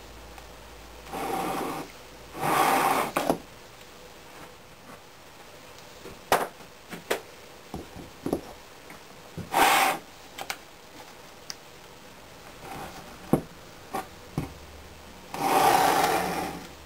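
A two-part wooden sand-casting flask being handled and fitted together on a wooden workbench: short scraping rubs of wood and sand against wood, four times, with small knocks and clicks in between.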